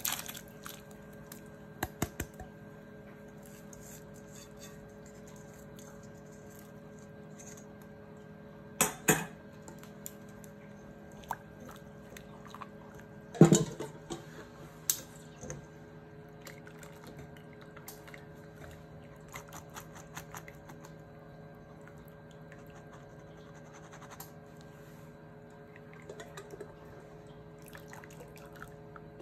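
Bitter melon slices blanching in a saucepan of boiling water with a mesh strainer basket, a quiet bubbling over a steady low hum. Several sharp metal clinks and knocks of the strainer and utensils against the pot, a double knock about a third of the way in and the loudest about halfway.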